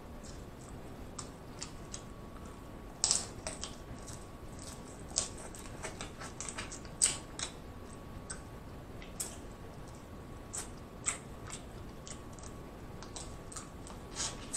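Close-miked mukbang eating sounds while working on a king crab leg: irregular wet clicks and smacks of chewing and lips, with louder ones about three and seven seconds in.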